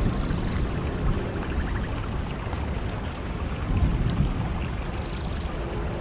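Steady rain ambience with a constant, uneven low rumble underneath.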